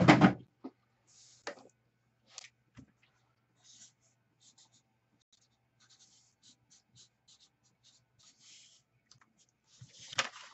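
Marker pen writing on paper: a run of short, faint scratchy strokes as a name is written out by hand.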